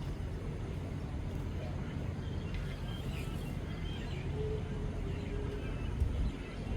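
Faint, distant voices of youth football players over a steady low rumble of outdoor background noise.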